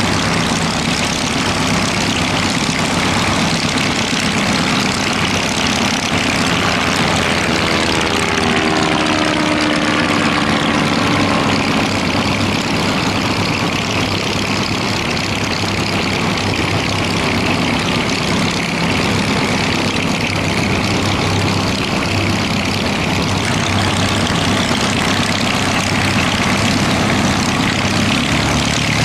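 Propeller-driven piston engines of a Piper L-4 Grasshopper and a Cessna Bird Dog in flight: a steady drone. About eight seconds in, the pitch glides down over a few seconds as one of them passes by.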